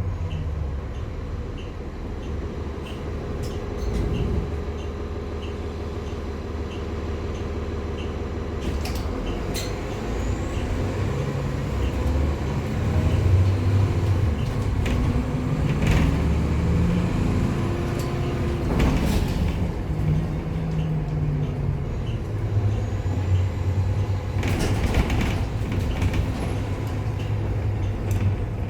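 Nova Bus city bus with a ZF automatic transmission running: a low engine drone that rises and falls in pitch as the bus drives and changes gear, with a few short hissing bursts along the way.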